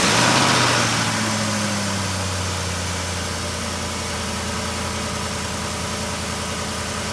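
Ford 5.4-litre Triton V8 running just after its first start following a timing chain replacement: the revs fall over the first couple of seconds and it settles into a steady idle.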